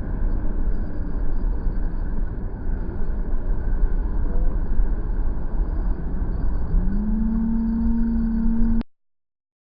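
Steady low rumble like a passing or nearby motor vehicle. About seven seconds in, an engine-like hum rises in pitch and then holds steady. The sound cuts off abruptly shortly before the end.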